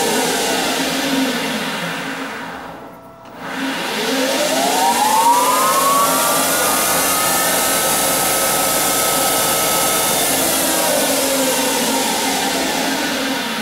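Grizzly G0602 lathe's VFD-driven motor and headstock spindle running at full 120 Hz speed: it spins down almost to a stop about three seconds in, then reverses and winds back up with a rising whine over a few seconds, runs steadily, and starts slowing again near the end. This is a hard-reversal test of the drive's acceleration and braking ramps.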